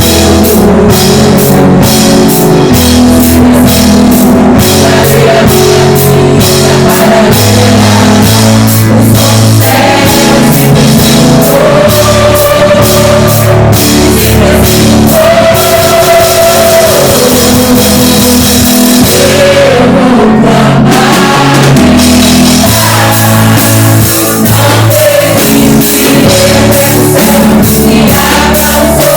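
Live worship band playing a contemporary praise song, with drum kit, bass, guitar and a sung melody.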